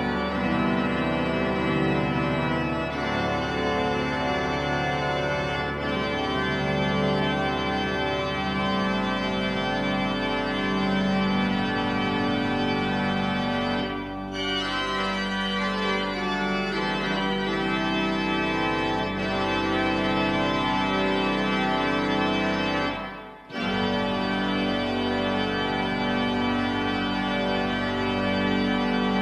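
Pipe organ playing a fanfare in full, sustained chords over a low held bass note, the restored instrument sounding. There is a brief break in the sound about four fifths of the way through.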